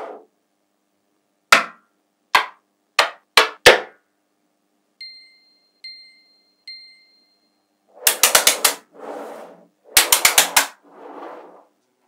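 Blocks of small neodymium magnet balls clicking as they are set down and snapped together: five separate sharp clicks in the first four seconds, then two quick rattling runs of clicks with sliding rubs between them as blocks join into a long bar. Three short high beeps sound around the middle.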